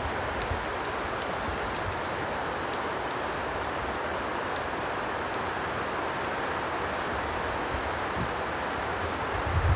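Steady rain falling, with scattered light drop ticks, and a brief low thump near the end.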